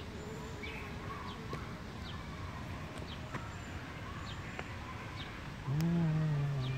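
Small birds chirping in short, high, downward-sliding calls every second or so over steady outdoor background noise. Near the end a person's voice sounds one drawn-out syllable for about a second, the loudest sound.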